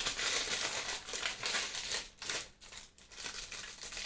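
Packaging crinkling and rustling as it is handled, with a short quieter stretch about two seconds in before it resumes.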